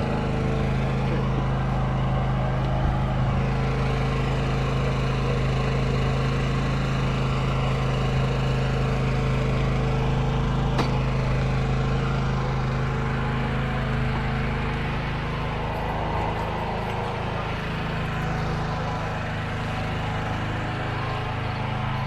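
A vehicle engine running at a steady pace with road noise: an even, low drone that holds constant throughout.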